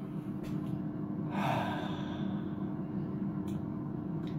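A short breathy exhale about a second and a half in, over a steady low hum from a running air fryer, with a few faint clicks.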